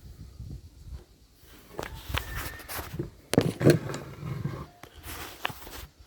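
Handling noise from a broken-open spring-piston air rifle being turned over and oiled: irregular knocks, clicks and rustles, the loudest knocks a little past the middle.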